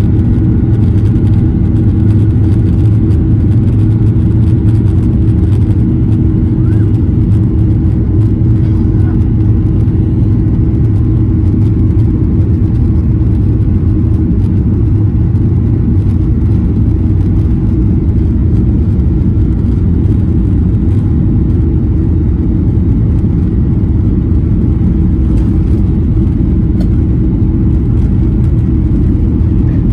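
Jet airliner cabin noise from a Boeing 737: a loud, steady engine and airflow drone with a low hum that does not change.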